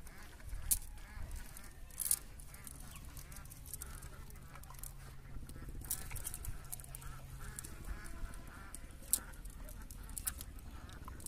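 A cast net being gathered and shaken out by hand, its lead sinkers and mesh giving several sharp clicks and a soft rustle. A bird calls repeatedly in the background.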